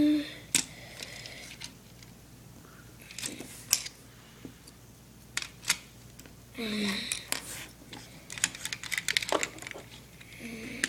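Small plastic Lego pieces clicking and clattering as they are handled and pressed back together, in scattered sharp clicks with a denser run near the end. A brief vocal sound comes near the start and again about two-thirds through.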